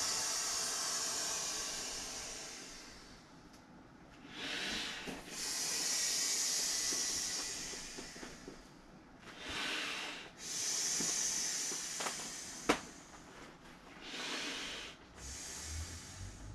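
Air blown by mouth into the valve of an inflatable vinyl airplane: a series of long rushing exhales, each one to four seconds, broken by short pauses for breath. A single sharp click sounds about three-quarters of the way through.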